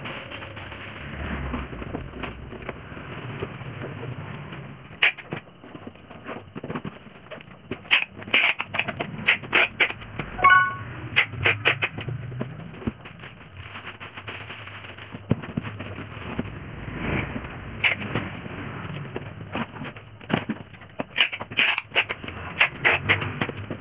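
Packing noises: clear plastic bags crinkling and cardboard boxes being folded and handled, heard as clusters of sharp crackles and taps, with a brief squeak about ten seconds in.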